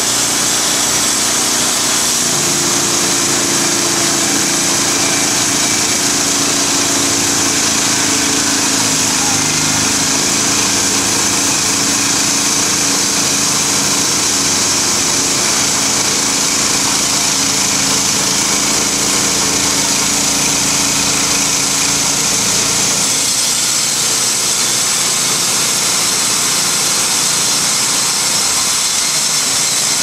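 Logmaster LM1 portable bandsaw mill running on its gasoline engine, the band blade sawing lengthwise through a pine log. The steady running noise continues throughout, and its low hum changes about three-quarters of the way through.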